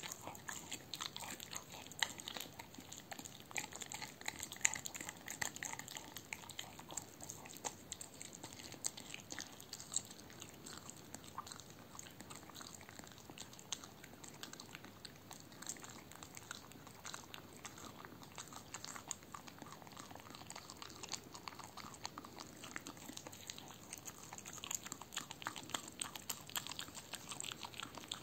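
A dog chewing, gnawing and licking a raw veal heart: a steady run of irregular small clicks and smacks of teeth and mouth, with a couple of louder bites about two and five seconds in.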